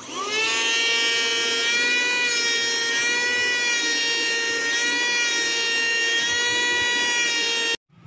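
Small rechargeable handheld car vacuum cleaner switched on: its motor spins up with a quick rising whine, then runs at a steady high-pitched whine with many overtones. The sound cuts off suddenly near the end.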